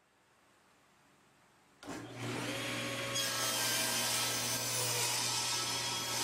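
Table saw switching on suddenly about two seconds in and running with a steady hum, cutting a red oak board to width on a crosscut sled; the sound grows brighter and harsher about three seconds in.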